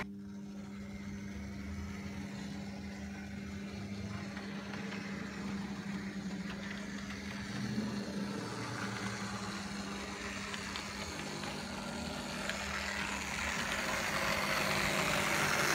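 Model diesel trains on a layout: a steady engine-like hum, with the running noise of a model diesel locomotive growing louder over the last few seconds as it approaches.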